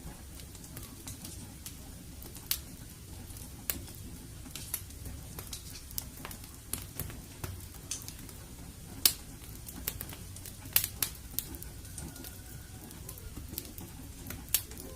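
Fireplace fire crackling, with irregular sharp pops over a steady low rumble of the flames.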